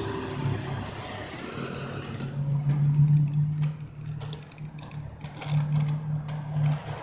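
City road traffic heard from a moving bicycle: a steady, wavering low hum of car and scooter engines, with a run of sharp rattling clicks from the bike starting about two seconds in.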